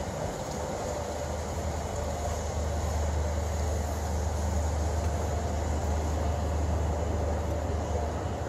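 River cruise ship's engines running with a steady low rumble as the ship gets under way out of a lock, growing a little louder about two and a half seconds in.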